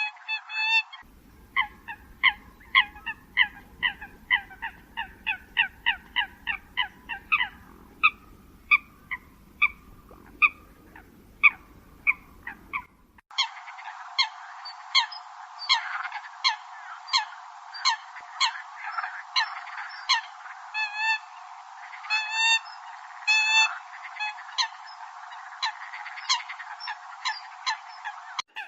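Eurasian coots calling: a rapid run of short, sharp, clipped calls from several birds, overlapping at times. The recording is spliced, with an abrupt change in background about 13 seconds in.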